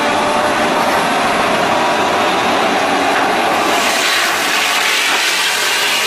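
Excavator-mounted tree mulcher head grinding down a spruce from the top: a loud, steady run of machine and cutting noise. About three and a half seconds in it turns hissier as the head bites into the wood and sprays out chips and sawdust.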